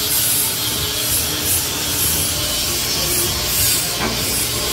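Rasping and rubbing of a tool worked over a surface in repeated strokes, the kind of sanding or filing heard in bodywork.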